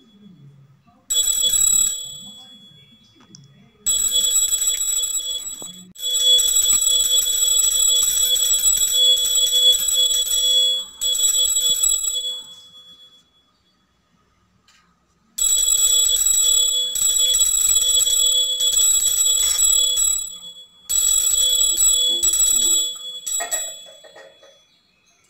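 A puja hand bell rung continuously in about six stretches of a few seconds each, with a short pause near the middle. It is the bell rung during the abhishekam, the ritual bathing of the idols.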